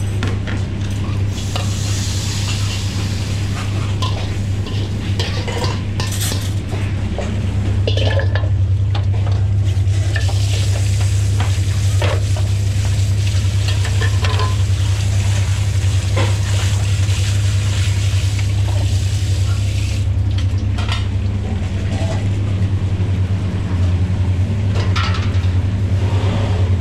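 Metal ladle scraping and clanking against a carbon-steel wok as food is stir-fried and sizzles, with many short knocks of the ladle. Partway through, water from a tap splashes into the wok. A steady low hum runs underneath throughout.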